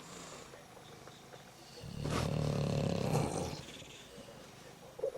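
A sleeping bulldog snoring: one long, loud, rumbling snore about two seconds in, lasting about a second and a half, with a quieter breathy rumble either side and a short sharp snort near the end.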